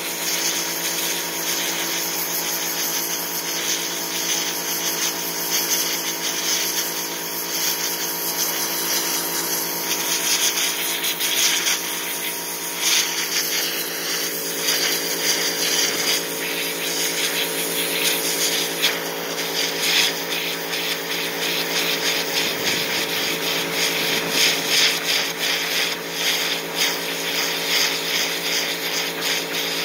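Electric pressure washer running steadily: the motor-driven pump hums under the loud hiss of a zero-degree water jet spraying onto a wet deer hide on a wooden board.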